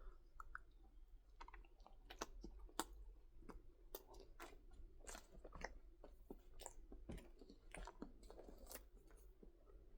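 A person chewing a bite of Lunchables pizza with sweet tomato sauce and unwarmed cheese. It is quiet, with many small mouth clicks and crunches throughout.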